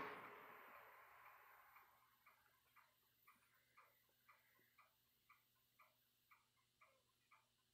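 A soft rushing noise fading away over the first two seconds, then faint, evenly paced ticking, about two ticks a second, like a clock.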